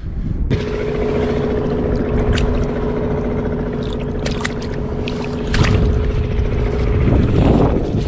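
An engine running steadily with an even hum, while a hand sloshes and splashes through a shallow pool of muddy water. The engine grows louder about five and a half seconds in.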